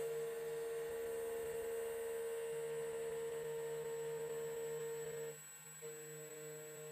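CNC key cutting machine milling a copper blank: a steady whine from its motor, which drops out for a moment about five seconds in and then comes back.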